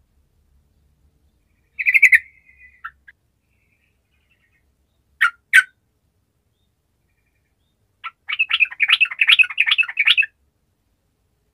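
Yellow-vented bulbul (trucukan) singing in short bouts: a brief phrase, then two sharp notes, then a rapid bubbling run of notes lasting about two seconds near the end.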